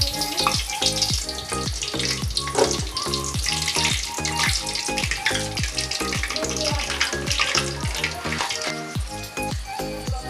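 Food sizzling and crackling in hot oil in a pan, a steady frying hiss, over background music with a steady beat.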